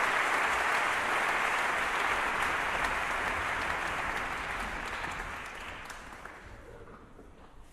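Concert audience applauding an orchestra. The clapping fades out gradually over the last few seconds.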